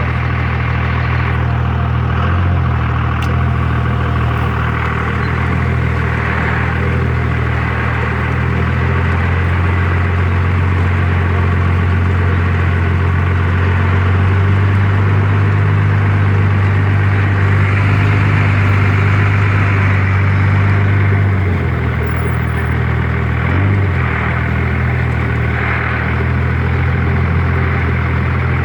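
Truck engine running steadily with a low hum. The hum grows louder about a third of the way in and dips briefly a couple of times near the end.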